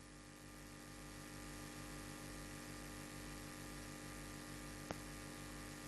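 Faint steady hum and hiss of room tone, with a single faint click about five seconds in.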